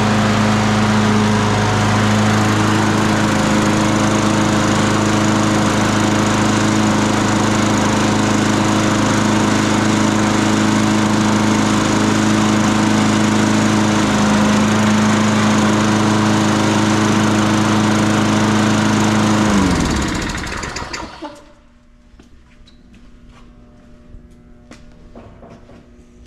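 Tecumseh engine on a Toro walk-behind mower running steadily at constant speed on its newly fitted carburetor. It is shut off after about twenty seconds, its pitch falling as it winds down to a stop. A few faint clicks follow.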